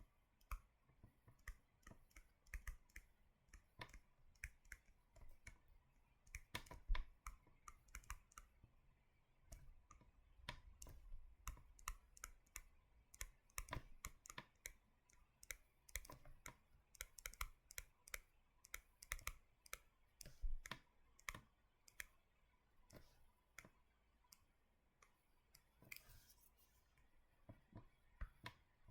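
Faint, irregular clicking and tapping of a pen writing on a hard surface.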